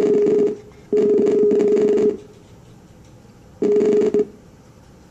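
Skype outgoing video-call ringing tone from the laptop: a steady buzzy tone in pulses, one ending half a second in, a second lasting about a second, and a shorter one after a longer gap near four seconds. The call is still waiting to be answered.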